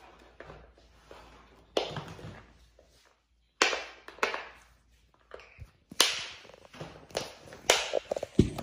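Small interlocking plastic building pieces clacking as they are picked out of a wooden bowl and handled: about five sharp clicks, a second or two apart.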